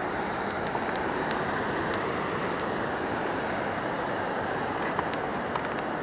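Sea surf rushing steadily, with a couple of faint ticks near the end.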